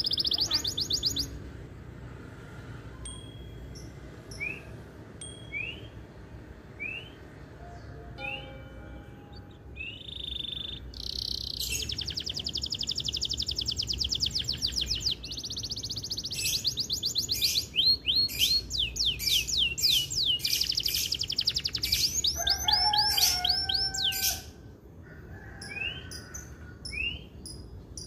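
Male canary in full song: long, fast trilled rolls and runs of quick rising notes, with quieter stretches of single rising chirps near the start and after about 24 seconds.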